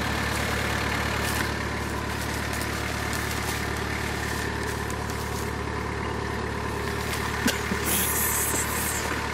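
Engine of the Khizhak, a homemade off-road trial vehicle, idling steadily. Near the end comes a brief rustle of leafy branches.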